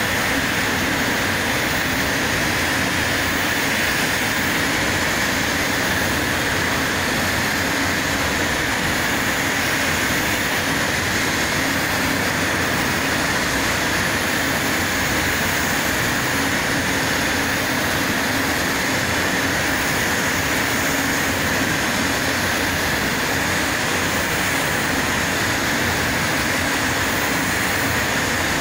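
Steady, unbroken hiss of rushing air in a paint spray booth while clear coat is being sprayed: the booth's airflow and the spray gun's air together.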